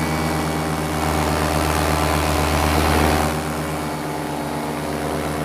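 A paramotor's two-stroke engine and propeller running steadily in flight, heard close up from the frame. The sound swells louder for a couple of seconds and eases back about three seconds in.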